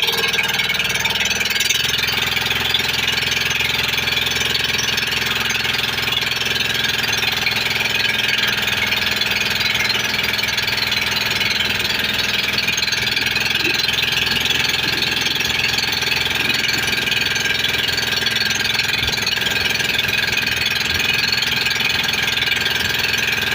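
Motorized banca's engine running steadily at an even speed, a continuous mechanical chugging that does not rise or fall.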